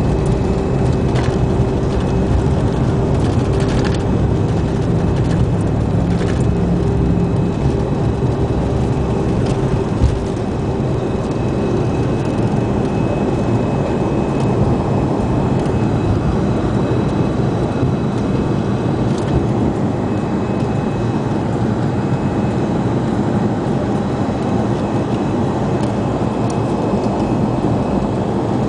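A Fokker 100 jet airliner's rear-mounted Rolls-Royce Tay turbofans at takeoff power, heard from inside the cabin, with rumble from the wheels on the runway. A single thump comes about ten seconds in. After it a steady hum stops and the low rumble eases as the jet leaves the ground and climbs.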